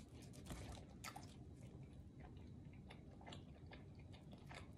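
Faint close-up chewing of pizza: soft, irregular mouth clicks and wet smacks.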